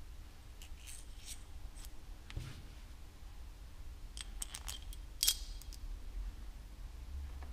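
Small metal parts being handled on a hardboard workbench: scattered light clicks and clinks as a threaded rod, aluminium spacers and a black weight are picked up and set down. There is a soft knock about two and a half seconds in and the sharpest clink about five seconds in.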